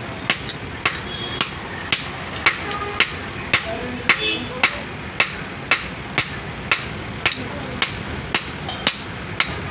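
Blacksmith's hand hammer striking iron on a low anvil in a steady rhythm, about two ringing metallic blows a second, around eighteen in all.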